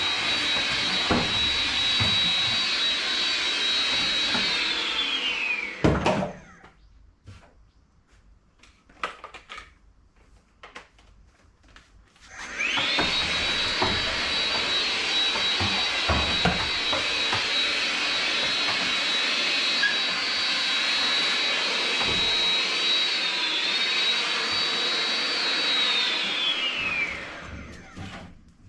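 Vacuum cleaner running with a high motor whine, switched off about six seconds in and spinning down; a few light knocks and clicks follow in the pause. It is switched on again, runs steadily with a brief dip in pitch, and spins down near the end.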